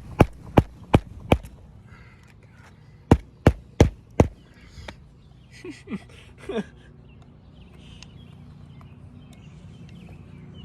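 Hammer driving roofing nails through a replacement shingle: a quick run of five sharp strikes, then four more about three seconds in.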